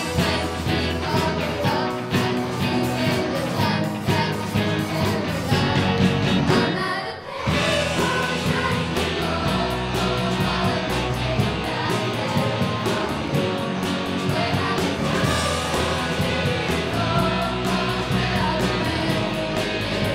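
Live rock band of electric guitars, bass, keyboard and drums playing a pop song, with lead singers and a choir singing along. The music drops out for a moment about seven seconds in, then comes straight back.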